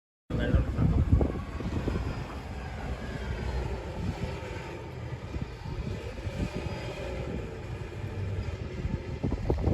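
Snowstorm wind buffeting the microphone: a heavy low rumble that swells and drops in gusts, over a steady rushing hiss.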